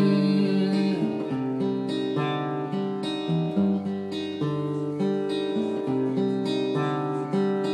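Acoustic guitar strumming chords, the chords changing every second or so, with no singing.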